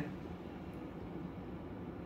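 Faint room tone in a pause between spoken sentences: a low, steady hiss and hum with no distinct event.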